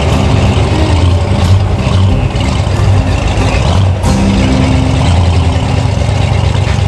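Off-road 4x4's engine running loud and steady as the vehicle creeps slowly along a trail, its note dipping briefly about four seconds in.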